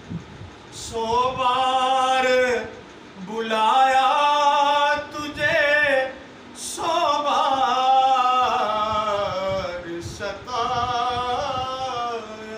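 A man singing a naat, an Urdu devotional poem in praise of the Prophet, in long ornamented held phrases: about four phrases with short breaks between them.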